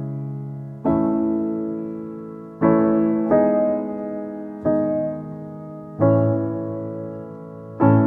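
Background piano music: slow, sustained chords struck every second or two, each ringing on and fading away.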